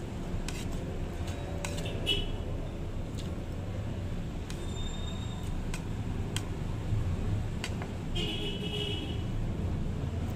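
Fork and spoon clinking and scraping on a ceramic plate, with a dozen or so sharp clicks, a couple of them ringing briefly, during a meal of rice and tocino. Under it runs a steady low rumble.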